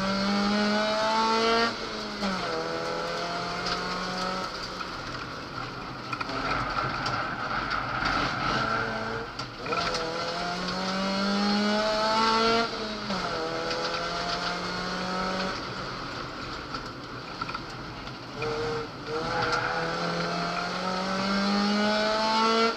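Naturally aspirated Ford Focus 2.0 four-cylinder engine heard from inside the cabin, pulling hard under full throttle. The pitch climbs steadily three times, each pull ending in a sudden drop, with steadier lower-revving stretches between.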